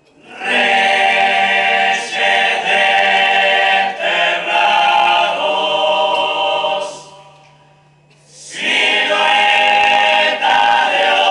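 Uruguayan murga chorus of mixed voices singing a cappella, loud and full. About seven seconds in the voices die away to a single low held note, and the full chorus comes back in roughly a second and a half later.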